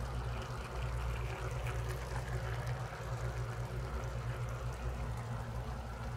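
Freshly cooked claypot of chicken still sizzling and bubbling inside, a fine crackling hiss over a steady low hum.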